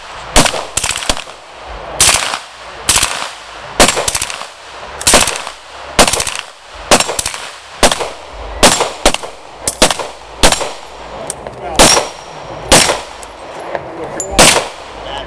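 A semi-automatic rifle fires rapidly and unevenly, about two shots a second, mixed with a second shooter's pistol shots.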